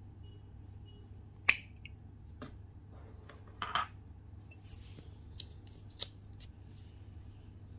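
Handling clicks from a perfume bottle's metal cap being pulled off: one sharp click about a second and a half in, a short cluster of clicks a couple of seconds later, and a couple of light taps near the end as the cap is put down on a tile floor.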